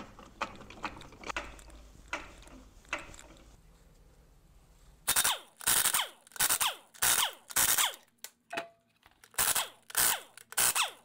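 Pneumatic impact wrench loosening wheel lug bolts in short, loud bursts about two a second, each dropping in pitch, starting about five seconds in. Before that, a few faint clicks as a floor jack is pumped.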